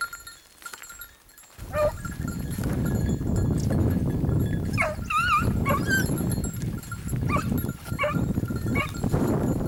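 Hare hounds giving tongue on the trail: scattered short yelps and one wavering howl about five seconds in. A steady low rush comes in about a second and a half in and stays underneath.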